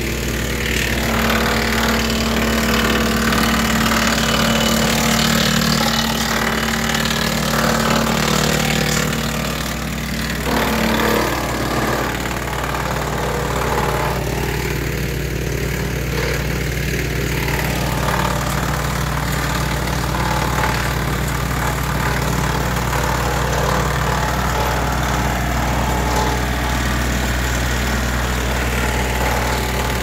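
Wood chipper's engine running steadily, with an even, unbroken drone.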